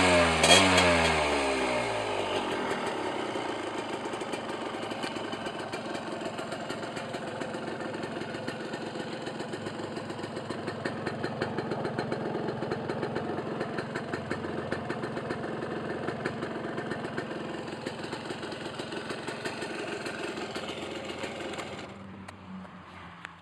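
1979 Suzuki TS125ER's two-stroke single-cylinder engine: a last blip of revs falls away at the start, then it idles steadily until it stops near the end.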